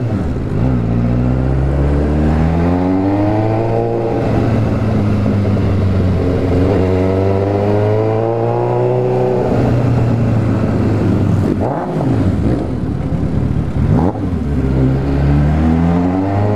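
Suzuki GSX750F's inline-four engine running through an open, straight-pipe exhaust as the motorcycle is ridden. The revs climb and fall back several times, with two long pulls early on and brief dips about twelve and fourteen seconds in, then a climb again near the end.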